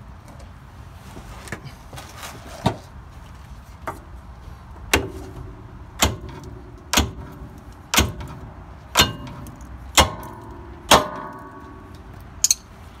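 Hammer blows on the lower shock-absorber mounting bolt, driving it out through the shock's eye and the control arm. There are about ten strikes, roughly one a second. The first few are lighter, and the later ones are harder and ring with a metallic tone.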